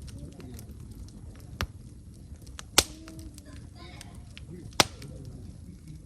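Wood fire crackling, with a small pop about one and a half seconds in and two sharp, loud pops near the middle and later on, over faint small ticks.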